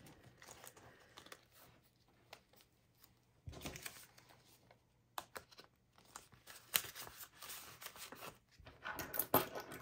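Banknotes rustling and clear plastic binder pockets crinkling as paper money is slid into a zippered cash-budget binder wallet, with scattered small clicks. The handling gets busier and louder near the end.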